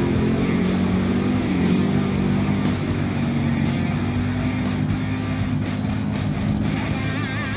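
Engine of a lifted off-road SUV on huge tractor-tread tyres running steadily under load as it drives through a shallow river, its pitch dipping briefly about a second and a half in. Guitar music comes in near the end.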